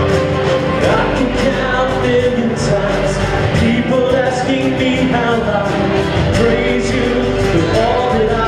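A live church praise band playing a worship song: acoustic guitar, drums and other band instruments over a steady beat, with voices singing the melody.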